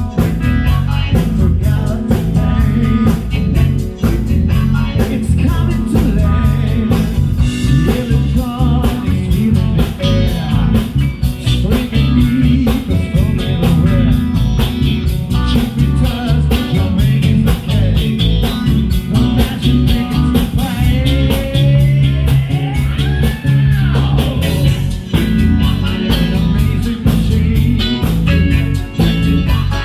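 A rock band playing live, with a steady beat, heavy bass, guitar and singing. About two-thirds of the way through, a swooping tone rises and then falls.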